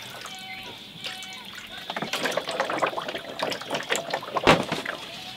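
Water splashing over a wet-collodion glass plate in a darkroom tray as it is rinsed, the splashing getting busier about two seconds in. A sharp knock sounds about four and a half seconds in.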